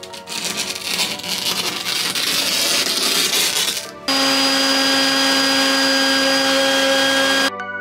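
Wet/dry shop vacuum running at a steady pitch as it sucks debris off a plywood seat board, switching on abruptly about four seconds in and cutting off abruptly near the end. Before it, a dense scratchy rustling noise.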